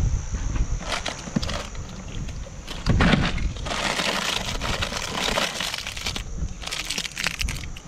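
A hand rummaging in an ice-filled cooler: ice cubes clattering and shifting, with plastic snack wrappers crinkling as a handful of fun-size chocolate bars is pulled from a bag. The busiest rustling comes in the middle, with scattered clicks before and after.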